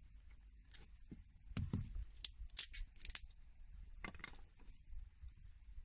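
Knife cutting into a thin stick of wood: a handful of short, sharp cuts and snaps, with a dull knock about a second and a half in.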